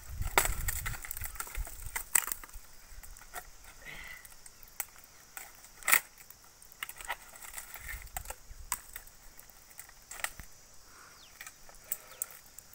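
Scattered sharp clicks and crackles, with one louder knock about six seconds in, over a low rumble near the start and again around eight seconds.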